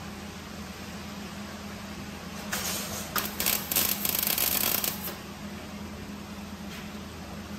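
Gas-shielded (MIG) welder crackling in short runs as a patch plate is welded onto rust-eaten sheet metal, the loudest run from about two and a half to five seconds in, over a steady low hum.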